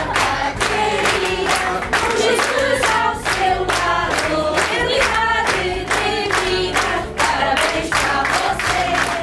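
A group of women singing a congratulations song together, with a steady rhythm of hand-clapping at about two claps a second.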